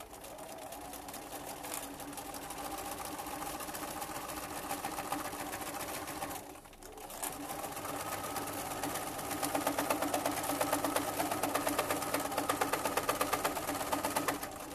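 Electric sewing machine fitted with a zipper foot, running steadily as it stitches a seam along a zipper's teeth through layered fabric. It stops briefly about six and a half seconds in, then runs on a little louder and higher in pitch.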